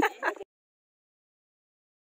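The last syllables of a short spoken phrase, then, about half a second in, dead silence.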